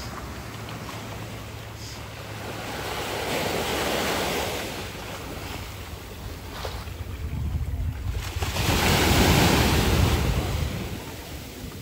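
Sea surf washing and breaking on the shore, swelling twice and loudest about nine seconds in, with wind rumbling on the microphone.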